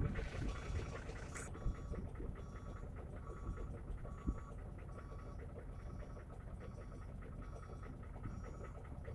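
Idling diesel dump-truck engine with a low, steady rumble, while a faint electronic warning alarm beeps steadily, about three beeps every two seconds.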